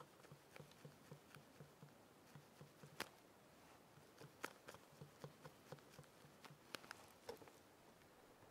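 Faint, quick soft taps, three or four a second, with a few sharper clicks: a brush dabbing and mixing oil paint on a palette.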